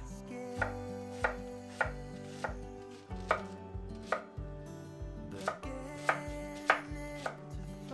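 Chef's knife chopping a peeled onion on a wooden cutting board: blade strikes knocking on the wood in a slow, even rhythm, about one every two-thirds of a second.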